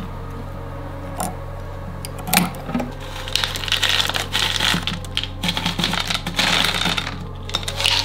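Small pebbles poured from a scoop, clattering down onto rock and gravel in a dense rattle for about four seconds. A few single sharp clicks come before it.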